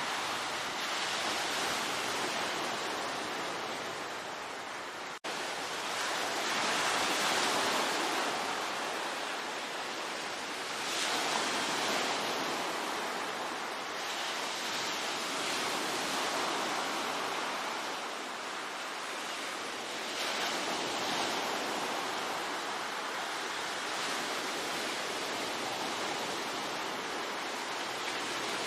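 Sea waves breaking on a shore, a steady surf hiss that swells and eases every few seconds as each wave comes in. The sound cuts out for a split second about five seconds in.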